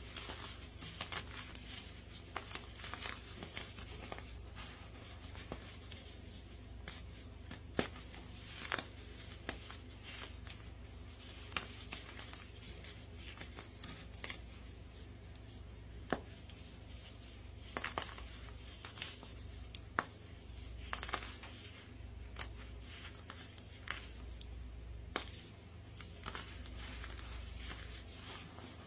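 Fingers crushing a crunchy reformed block of baking soda: dense, irregular crunching and crackling with sharp snaps here and there as the block breaks apart into powder.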